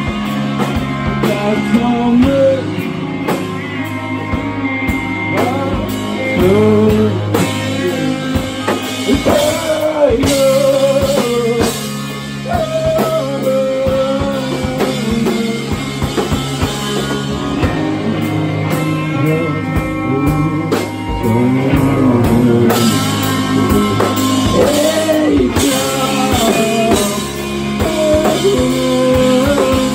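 A rock band playing live: electric guitars and a drum kit, with a sung vocal line.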